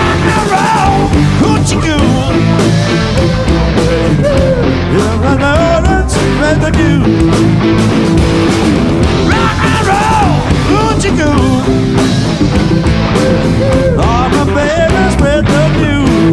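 Live rock band of electric guitars, bass guitar and drum kit playing loud, driving rock and roll.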